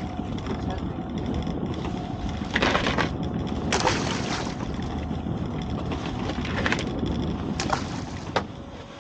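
Steady wind and sea rumble on a small open boat, with a few short knocks and splashes as gear is handled.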